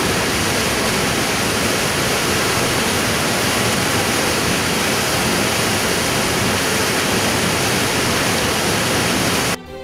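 Floodwater pouring over a weir and churning into white water: a loud, steady rush that cuts off suddenly near the end.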